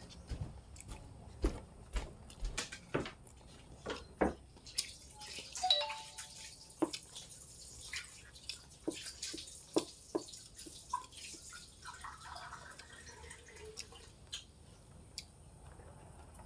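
Eating sounds: irregular wet mouth clicks and smacks while chewing rice noodles eaten by hand, with fingers working the food on a plastic plate.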